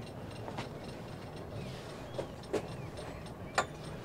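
Sailboat rigging and deck fittings clicking and creaking at irregular moments: a few sharp clicks and short squeaks over a faint low hum.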